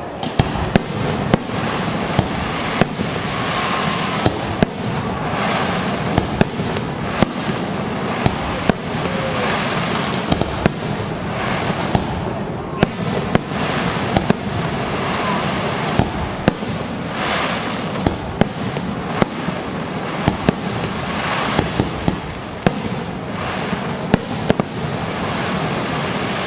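Fireworks display: sharp bangs from bursting shells, one or two a second, over a continuous din of crackling.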